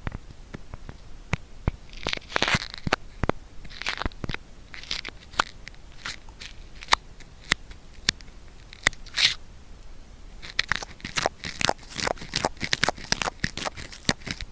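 Ear cleaning with an adhesive cotton swab, close-miked: scattered sharp clicks and crackles with a few short scraping strokes, turning into a dense run of crackling in the last few seconds.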